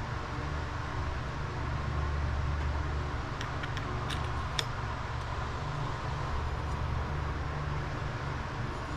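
Steady low background hum, with a few faint metallic clicks about four seconds in as small engine parts are handled.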